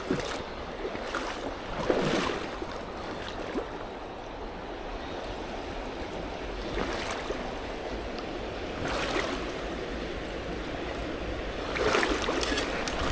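Flowing creek water, a steady rushing with a few louder swells about two, seven, nine and twelve seconds in.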